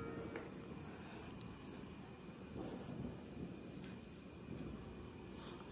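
Faint, steady chirring of crickets over a low background rumble.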